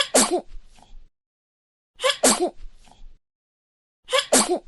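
A baby sneezing, three times about two seconds apart: each a quick double burst with a small voiced squeak, followed by faint after-sounds.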